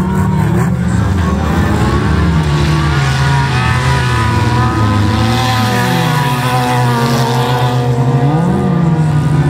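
Several wreck-racing cars' engines revving hard together as the cars slide through a dirt corner, their engine notes overlapping and rising and falling.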